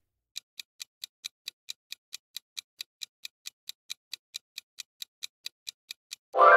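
Quiz countdown-timer sound effect ticking evenly, about four to five quick ticks a second, as the time to answer runs out. Near the end a louder ringing tone sounds, marking time up.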